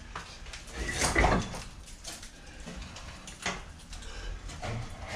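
Old wooden sash window being worked loose from its frame by hand: a few wooden knocks and a short creak, the loudest about a second in and another about three and a half seconds in.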